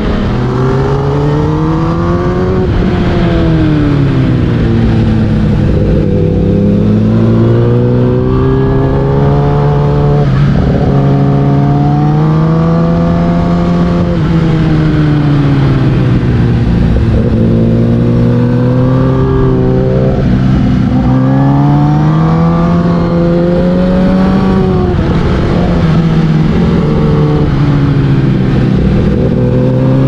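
Kawasaki ZX-10R inline-four sport bike engine through an Akrapovic full exhaust, heard from on board, revving up and down over and over as the bike is ridden through a run of corners. The pitch climbs on the throttle and drops off going into bends, with a couple of sudden breaks in the note about a third and half of the way through.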